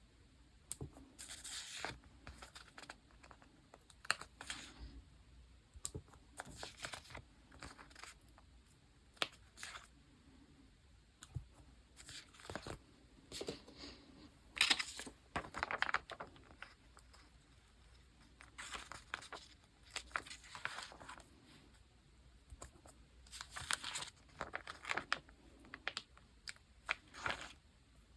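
Paper stickers and tape being peeled and handled while decorating a diary page: irregular short peeling and rustling sounds with light taps in between.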